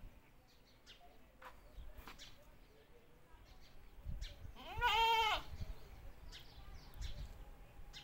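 A single wavering animal call about five seconds in, about half a second long, rising then falling in pitch.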